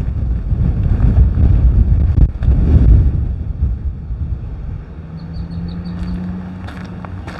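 Wind buffeting the microphone in loud low rumbles through the first three seconds, then easing, with a steady low hum coming in about five seconds in.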